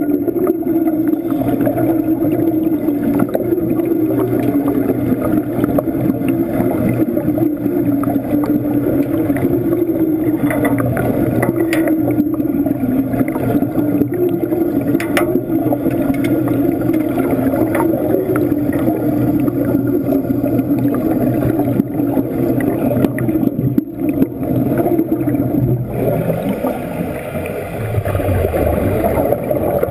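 Underwater wet-welding arc, stick welding under water, buzzing and crackling steadily as heard through the water, with bubbles gurgling. The sound changes near the end as the arc goes out.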